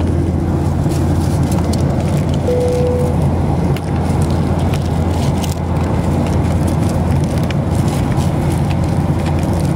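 Steady airliner cabin noise: the low, even roar of the engines and airflow, with a brief single tone about two and a half seconds in and small handling clicks from the phone.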